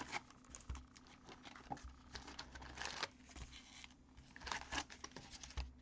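2022 Topps Heritage baseball card packs rustling and crinkling as a hand shuffles them and lifts them out of their cardboard hobby box, in a string of faint, short, irregular rustles.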